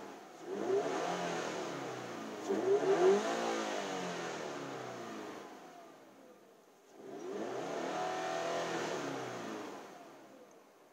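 2013 Subaru BRZ's flat-four engine revved twice while parked, each time climbing in pitch and dropping back to idle. It breathes through a newly fitted Zeta Performance intake tube with a sound generator, which to the owner sounds a little different.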